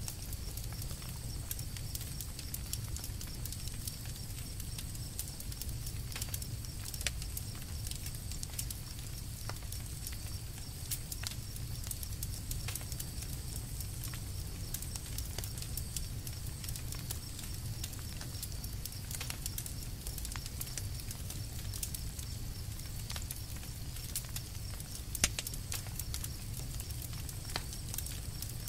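Campfire crackling: frequent small sharp pops and snaps over a low steady rumble, with one louder pop near the end.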